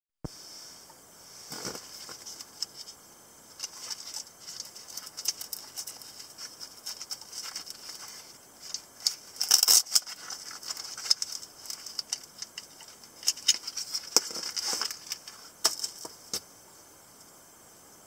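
Black nylon knife pouch being handled and opened: rustling fabric with irregular sharp clicks and snaps, loudest in a burst about halfway through. The sounds stop a little before the end.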